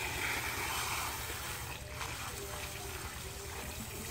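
Water from a garden hose splashing onto a muddy rotary tiller and the wet ground, strongest for the first second and a half and then softer, over a steady low hum.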